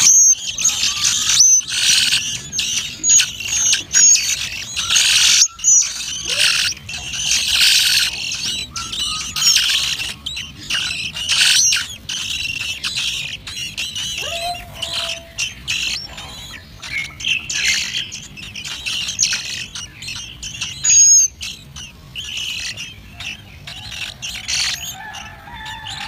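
A brood of large thrush nestlings begging for food at the nest, a dense chorus of high-pitched cheeping calls that thins to scattered calls about halfway through.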